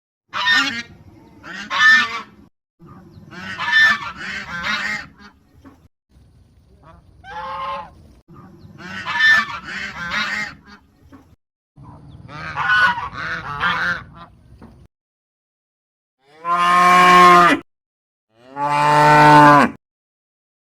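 Geese honking in repeated clustered calls for most of the stretch, then a cow mooing twice, two long, steady calls near the end.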